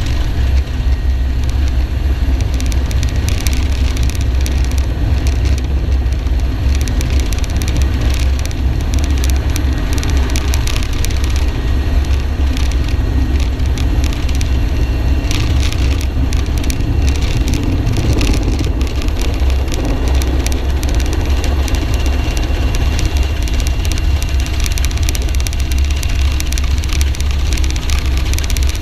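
Military helicopter running, its rotor and engines making a steady, loud, low drone.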